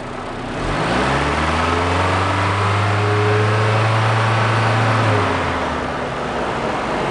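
Car engine revved by hand at the throttle, rising over about a second to a steady higher speed near 2500 rpm and held there for about four seconds, then falling back to idle. The rev is for an alternator charging test under raised rpm.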